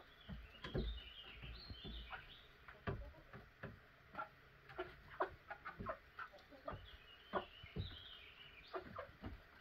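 Chickens clucking quietly: short scattered clucks, with higher twittering notes in the first two seconds and again near the end. A few low bumps early on.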